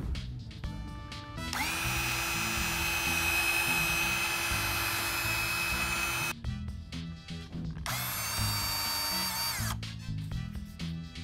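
18-volt ProSeries cordless drill running free with a steady high whine for about four and a half seconds, then a shorter second run of about two seconds that dips in pitch as it stops.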